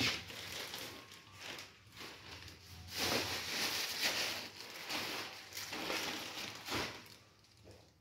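Irregular rustling and scuffing handling noises, loudest in the middle stretch and fading near the end.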